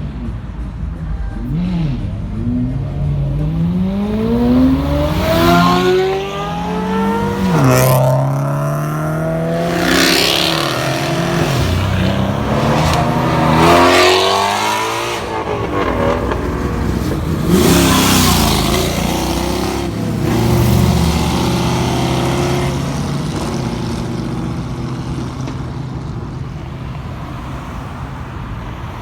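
Several loud cars accelerating away one after another, their engines revving up through the gears, with loud bursts of exhaust noise in the middle; the sound fades in the last few seconds.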